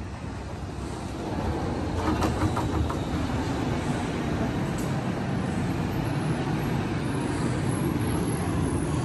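Airport people-mover tram arriving at the station platform: a steady rumble that grows louder about a second and a half in and holds as the tram pulls in and stops, with a brief higher whine or squeal around two to three seconds in.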